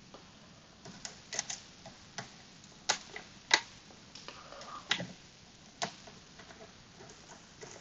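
A hook pick and tension tool working inside a Kwikset SmartKey Gen 2 slider lock: irregular small metallic clicks with light scraping, the sharpest about three and a half seconds in.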